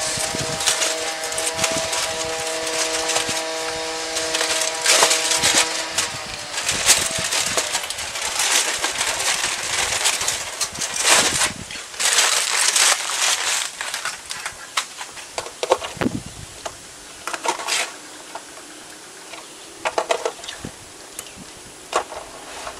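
Aluminium foil crinkling and crackling as it is peeled off a disposable foil pan, dense for the first dozen seconds or so. After that come sparser clicks and scrapes as a silicone spatula stirs meat cubes in sauce in the thin aluminium pan.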